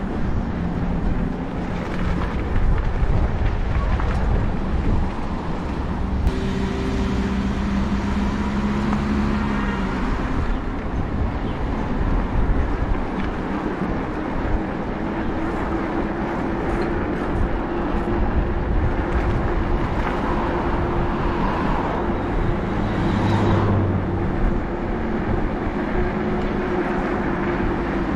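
Steady wind and road noise from riding a Sleeper XP e-bike, with a low hum that shifts in pitch a few times.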